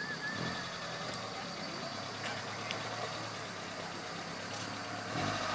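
Small 4x4 off-roader's engine running steadily at low revs as it crawls down a dirt slope, a low even hum with no revving.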